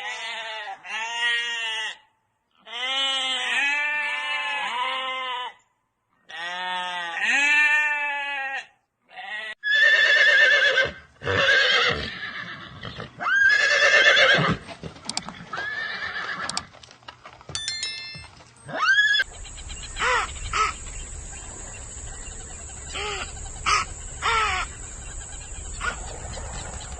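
A horse neighing and whinnying in a string of separate calls, each rising and falling in pitch with short gaps between them. In the last third a steady high whine and a low hum run under fewer, shorter calls.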